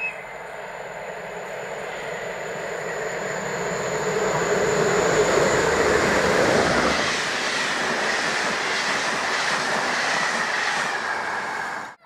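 Railjet passenger train approaching at speed and running past: a rushing rail noise that grows louder over several seconds, then the steady run of the coaches with a faint high whine and light wheel clicks. It cuts off abruptly near the end.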